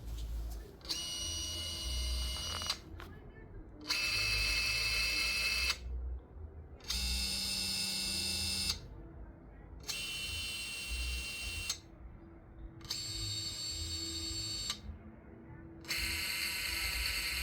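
Brushless motors of an octocopter run one at a time in a sequential motor test at 75% throttle: six separate runs of about two seconds each, roughly three seconds apart, each a steady high whine that starts and stops abruptly.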